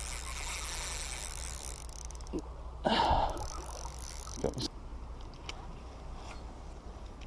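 Spinning reel being wound in, a fine whirring hiss for the first couple of seconds. About three seconds in comes a loud rustle and then a couple of knocks as a knitted sleeve and hand brush against the camera.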